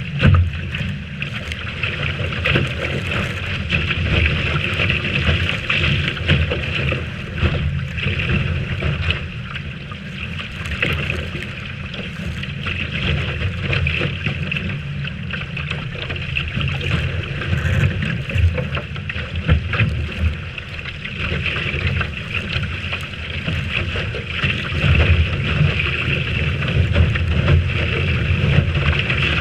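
Strong wind buffeting the microphone with a steady rush of water along the hull of a Lightning sailboat sailing in a big breeze, rising and falling in gusts.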